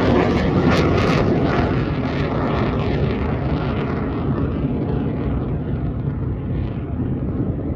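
Military jet aircraft passing high overhead: a loud, steady jet rumble with a faint falling whine in the first few seconds, easing slightly as it moves away.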